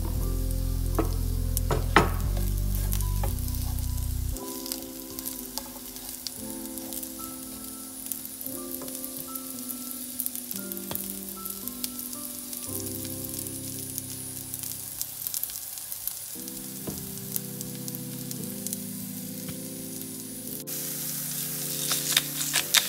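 Sliced mushrooms sizzling and crackling in an oiled frying pan, the crackle growing denser and louder near the end. Soft background music with held chords plays throughout.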